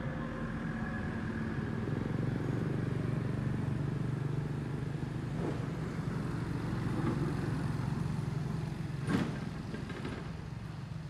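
A steady low engine hum, swelling slightly after a couple of seconds, with a single sharp click about nine seconds in.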